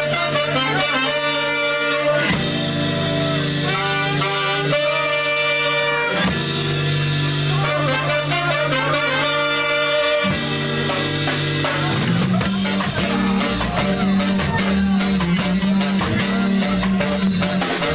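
Live ska band playing, its horn section of saxophone, trumpet and trombone carrying the tune over drums and guitar. About ten seconds in, the held horn chords give way to busier playing with a heavier bass line.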